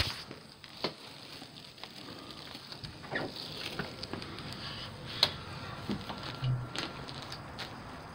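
Handling noise from a phone being moved around outdoors at night: scattered clicks, knocks and rubbing against a faint steady hiss, with a short low hum about six and a half seconds in.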